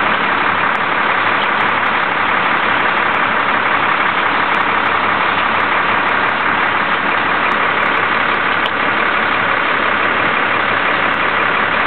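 Truck engine running steadily at idle, blended into a loud, even hiss.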